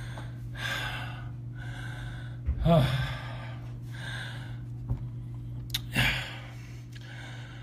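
A man breathing heavily, about five audible breaths in and out, each roughly a second apart, over a steady low hum. Two small clicks come a little past the middle.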